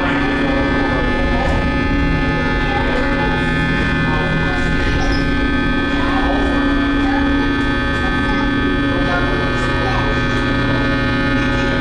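Steady electric hum of the Sky Tower observation-tower cabin's drive machinery, one unchanging drone with several steady tones, with faint voices in the cabin.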